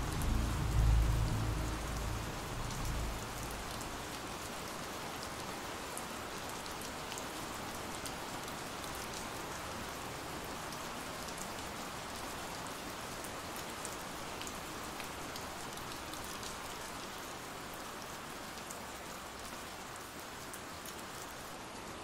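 Steady rain ambience: a dense, even hiss of rainfall with scattered drop ticks. A low rumble fades out over the first three seconds.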